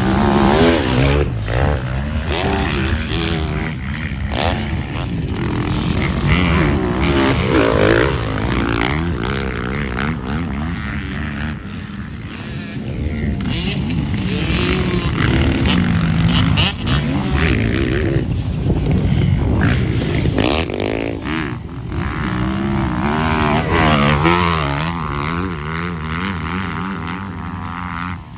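Motocross dirt bike engines revving hard and easing off as the bikes ride past on the track, their pitch climbing and dropping again and again through gear changes and throttle blips.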